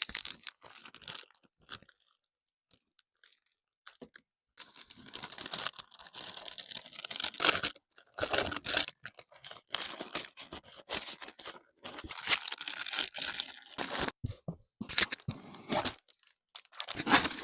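Packaging being unwrapped by hand: wrapping crinkling and tearing in crackly bursts, with a pause of about two seconds near the start.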